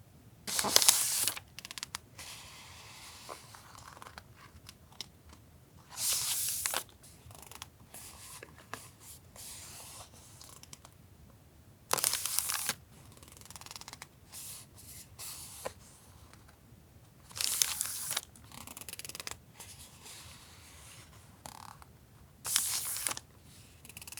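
Sheets of journaling paper handled one at a time: a short, sharp paper rustle about every five and a half seconds, five in all, with lighter rustling and small ticks between.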